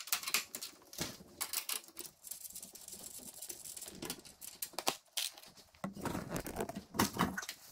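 A hand socket ratchet clicking in quick runs, with small metallic taps and clinks, as bolts and nuts are taken off steel slotted-strut rack brackets.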